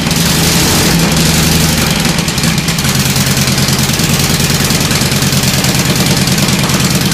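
Vintage V-twin motorcycle engine with exposed overhead valve springs idling with a rapid, even beat. Its note changes about three seconds in.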